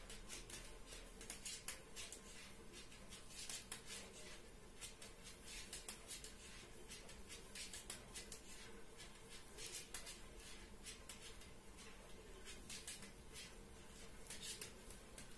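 Knitting needles clicking faintly and irregularly, several small ticks a second, as stitches are worked one after another.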